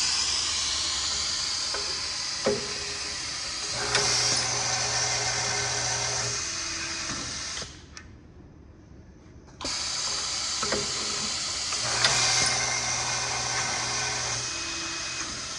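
Vacuum screwdriver's steady air hiss, twice, each time cutting off abruptly, as it picks up a stainless steel screw from the screw presenter and drives it. In the middle of each hiss the DC electric screwdriver motor runs with a low hum for a few seconds, driving the screw to torque, and a sharp click or two marks each pickup.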